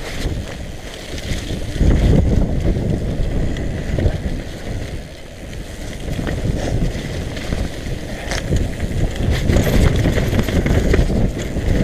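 Wind buffeting the camera microphone and a mountain bike's tyres rumbling over a dirt singletrack at speed, with knocks and rattles from the bike over bumps. The rush grows louder about two seconds in.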